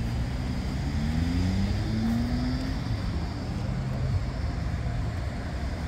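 City street traffic rumbling steadily. A vehicle motor's whine rises in pitch over the first few seconds as it pulls away, then fades into the general traffic noise.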